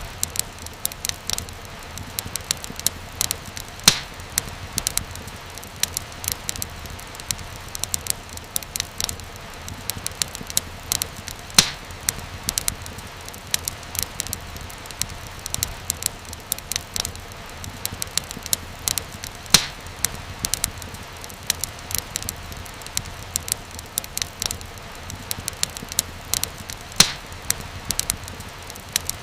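Wood fire crackling steadily, with dense irregular small pops and snaps over a low hiss. A few sharper, louder pops stand out: about four seconds in, near twelve seconds, near twenty and near twenty-seven.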